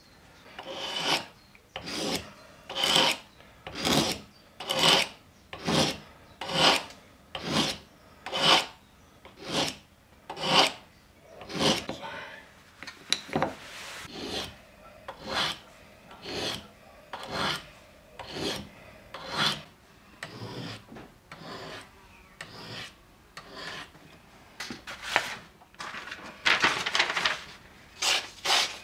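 A knife blade drawn in regular strokes along the rods of a two-rod ceramic sharpener, a rasping scrape about once a second. The strokes grow lighter partway through. Near the end comes a longer, denser stretch of scraping.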